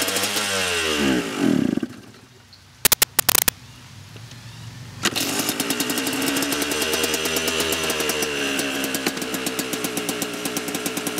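KTM two-stroke dirt bike engine being kick-started: it runs briefly, its revs fall away and it dies about two seconds in. A few sharp cracks follow around three seconds in, then the engine catches about five seconds in and keeps running fast with a rapid pulsing exhaust note, smoking blue.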